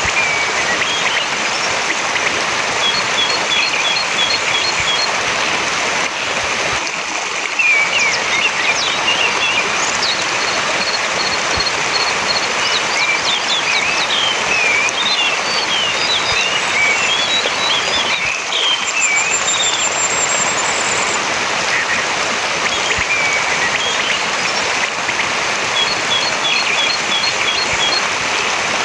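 Orange-headed thrush singing: varied warbling phrases of short whistled notes, with runs of quick, evenly repeated notes and a brief high trill. A steady rush of running water underlies it all and is the loudest sound.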